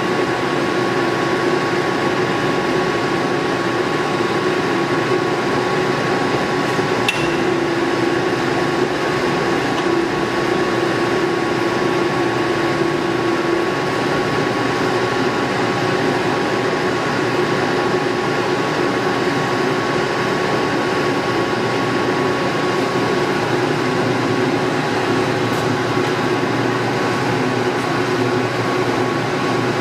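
Warner & Swasey No. 4A square-head turret lathe running under power: a steady mechanical whir with constant humming tones, and a single click about seven seconds in.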